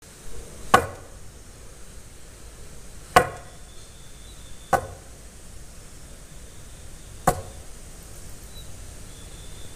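Axe chopping into a log: four separate heavy blows, a few seconds apart.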